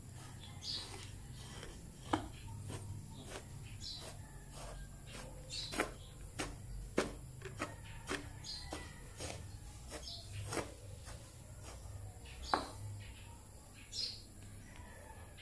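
Irregular sharp clicks and taps, roughly one every half second to a second, over a low steady hum.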